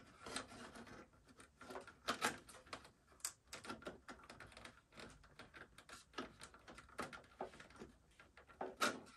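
Light, irregular clicks and rustling of computer cables and plastic connectors being handled and pushed against the inside of a PC tower case.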